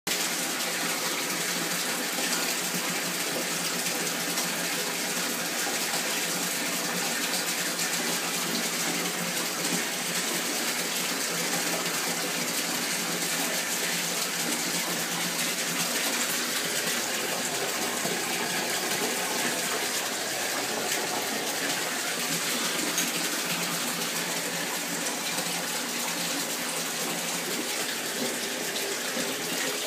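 Water running steadily from a tap into a bathtub, a constant rushing splash.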